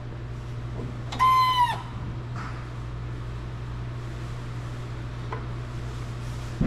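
Hydraulic shop press being released: a steady low hum, with one short, high-pitched squeal about a second in.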